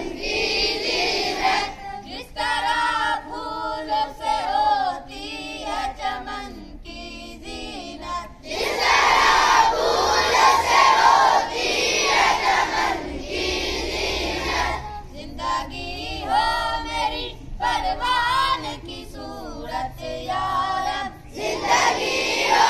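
Schoolboys chanting a dua (prayer) in turns: a single boy's voice sings a line and a crowd of boys answers in unison, twice over.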